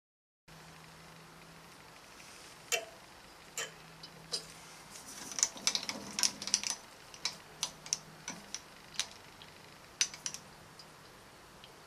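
Irregular light metallic clicks and taps from a coin being slid and tapped on the aluminium cylinder head under the drill bit, as the bit is brought down to touch it to zero the Z axis. The clicks come singly at first, bunch together in the middle, and return in a short cluster near the end, over a faint steady hum.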